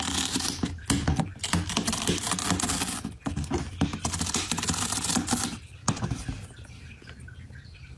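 A cat chewing on the edge of a cardboard box: a dense run of crunching, clicking bites that thins out and grows quieter after about six seconds.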